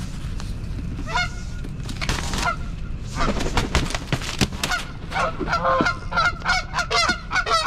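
Canada goose honking over and over, the honks coming faster and louder in the second half: a goose aggressively defending its nest.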